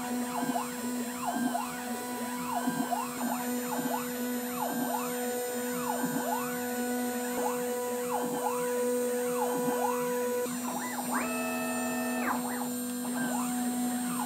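Stepper motors of a home-built CNC mill whining in rising and falling sweeps over a steady hum as the axes speed up and slow down while a 2 mm end mill cuts an aluminium plate. Near the end a higher, steady whine holds for about a second during a faster straight move.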